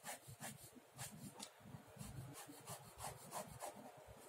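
Ballpoint pen scratching across sketchbook paper in a run of short, quick strokes, about three a second, as lines are drawn and hatched in. Faint.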